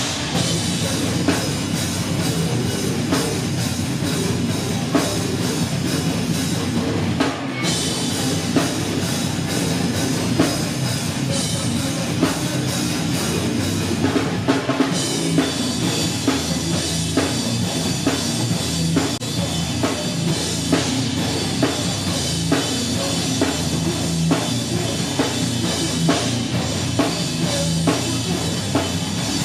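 Live band playing loud heavy rock, with a drum kit hitting hard and steadily under dense, continuous instruments.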